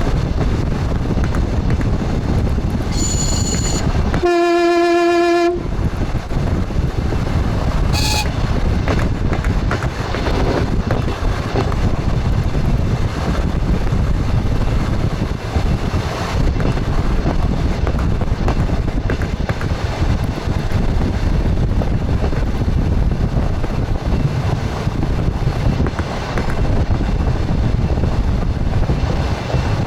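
Express train running on the rails, heard from the front cab as a steady rumble of wheel and track noise. About four seconds in the train's horn sounds one note for just over a second. Short high whistle tones come just before it and again about eight seconds in.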